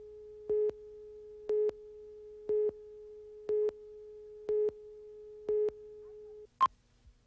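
Countdown slate audio on a commercial master tape: a steady test tone with a louder beep once a second, six beeps in all. The tone cuts off about six seconds in, followed by one short, higher blip.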